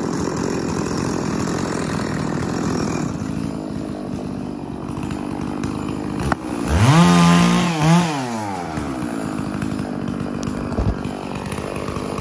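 Gas chainsaw engine idling with a steady rattle, revved up sharply about six seconds in, dropping back, then blipped once more before settling to idle again.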